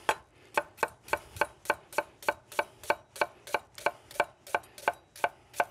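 Chef's knife chopping a red onion on a wooden butcher-block cutting board: a steady rhythm of knife strikes against the wood, about three a second.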